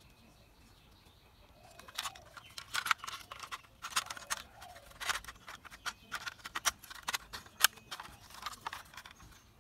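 Hard plastic toy parts being handled and pressed together, starting about two seconds in. Irregular clicks, taps and scrapes come as the wheeled chassis of a toy auto rickshaw is fitted into its body.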